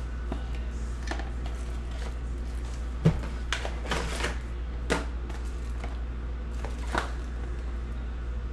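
Cardboard box of a Fanatics Under Wraps autographed baseball being opened by hand: the flap and packaging being handled, with a sharp tap about three seconds in and several lighter taps and clicks over the next few seconds, over a steady low hum.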